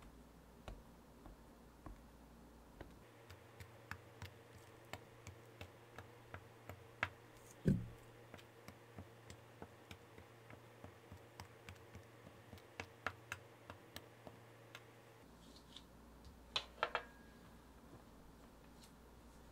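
Metal fork docking raw tart-shell dough in a fluted tart pan: faint, irregular clicks, one or two a second, as the tines pierce the dough and tap the pan base. There is a louder knock about eight seconds in and a cluster of louder clinks near the end.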